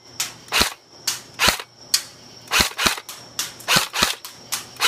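Airsoft AK-74 rifle firing a quick string of single shots, roughly two to three a second at an uneven pace, each a sharp snap.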